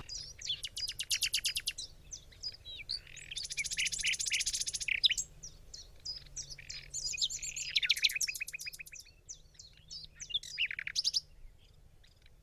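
Several songbirds singing and chirping together: fast trills of repeated notes and short whistled glides overlapping one another.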